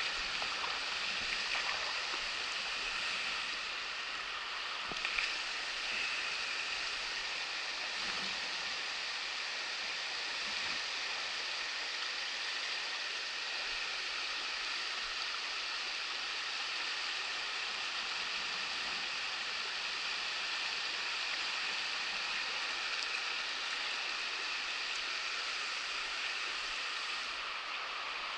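Shallow river riffle, water rushing steadily over rocks with an even hiss.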